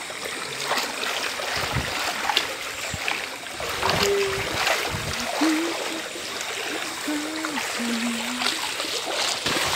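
Floodwater splashing and sloshing as people wade through it alongside an inflatable rubber rescue boat, with many small splashes.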